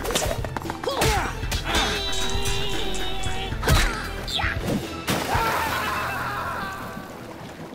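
Dramatic music with cartoon fight sound effects: several hits and crashes, then a splash about five seconds in as a figure drops into a vat of molten plastic.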